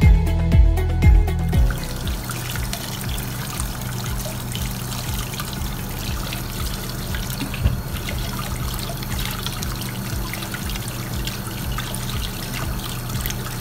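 Music with a heavy beat for the first second and a half, then a kitchen tap running steadily, its stream splashing over cucumbers rubbed under it and into a bowl of water in a stainless steel sink.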